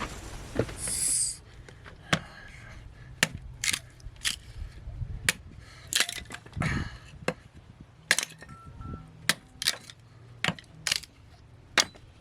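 A knife chopping on a wooden surface: irregular sharp knocks and cracks, about a dozen, unevenly spaced, with a short hiss about a second in.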